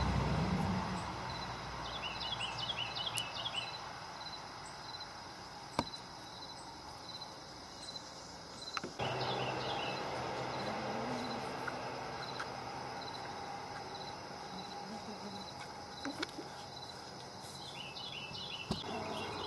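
Outdoor background with insects chirping in repeated high bursts, and a few small clicks and handling sounds as a new pull cord is knotted and pulled through a lawnmower starter handle.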